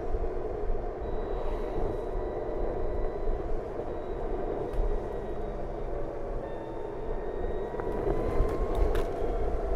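BMW CE 04 electric scooter under way: a thin, steady electric-motor whine over a dense rush of wind and tyre noise. The whine rises in pitch near the end as the scooter speeds up.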